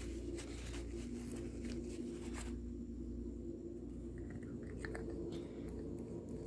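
Faint rustling of a paper towel being rubbed over a silicone bottle nipple, then a few light clicks as a small plastic tube and its cap are handled, over a steady low hum.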